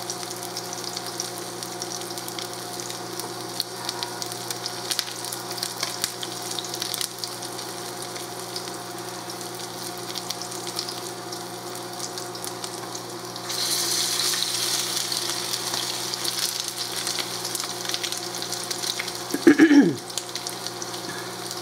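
Salmon patties frying in oil in a pan: a steady sizzle with light crackles. About two-thirds of the way through, the sizzle turns louder and brighter as another patty goes into the pan. A short vocal sound comes near the end.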